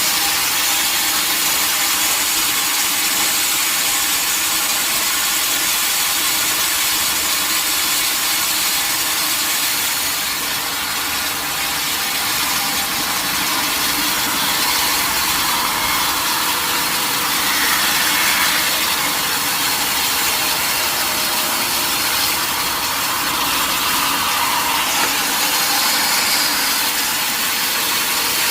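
A sawmill saw cutting through a mahogany log, a steady noise of blade in wood over the mill's running motor.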